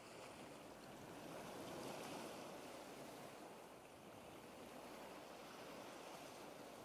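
Faint, steady rushing noise that swells a little and eases again, without any tone or distinct events.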